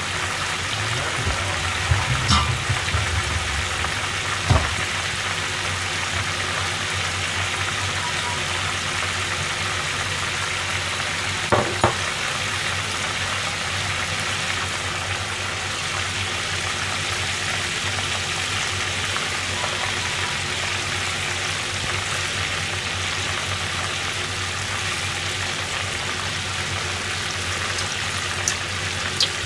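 Food deep-frying in a frying pan of hot oil, a steady sizzling and bubbling, with a few short knocks now and then.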